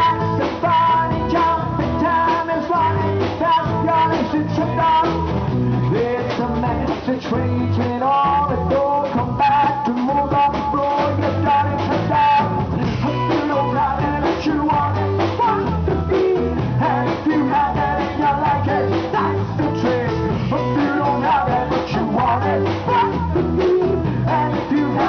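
A live band playing a rock song in an acoustic set: singing over guitar, with a steady percussion beat.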